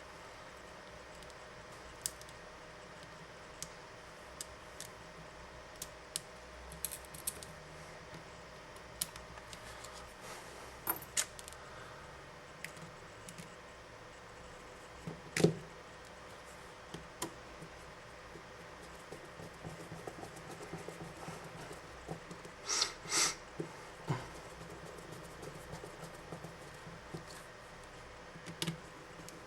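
Scattered light clicks and taps of small tools and plastic mobile-phone parts being handled during disassembly, with a louder knock about halfway through and a quick run of louder taps a few seconds later, over a faint steady hum.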